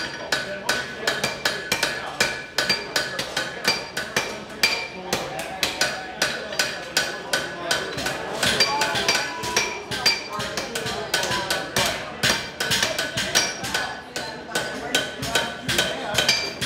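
Hand hammers striking hot steel on anvils, several smiths at once: quick overlapping blows, several a second, with the anvils ringing after them. The smiths are forging a one-inch steel cube out into a dish.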